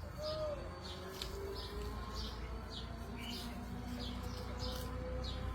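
A bird chirping over and over, short high chirps about twice a second, over a low steady background rumble.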